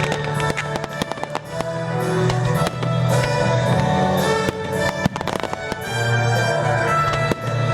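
Loud music playing with a steady bass line, with firework bangs and crackles scattered through it.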